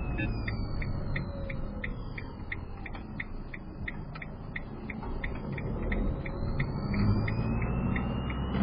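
A camper van's turn-signal indicator clicking steadily at about three ticks a second inside the cab, over the low rumble of the engine at crawling speed. A high whine falls in pitch in the first two seconds and rises again near the end.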